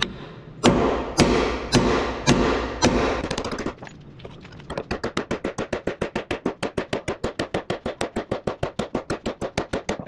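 A hammer strikes a steel bar-type bushing driver, seating a new boom pivot bushing into its bore. First come about six heavy ringing blows, roughly two a second. From about halfway, a fast steady run of lighter metallic strikes follows, several a second.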